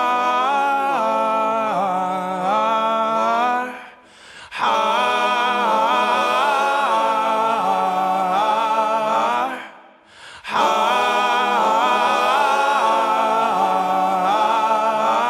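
Unaccompanied multi-part vocal harmony, several voices singing a wordless 'ahh'. It comes in three long held phrases, with short breaks about four and ten seconds in, as the song closes.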